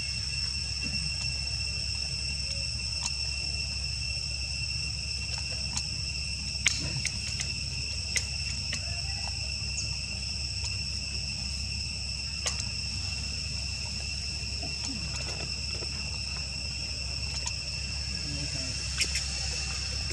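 Insects trilling steadily at a high pitch, with a few sharp clicks or taps scattered through, the loudest about seven and eight seconds in, over a low steady rumble.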